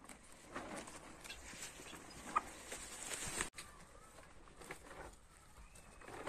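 Chickens pecking and tugging at a pile of fresh green leaves and stems, a run of quick pecks and leafy rustling. One short hen call about two and a half seconds in.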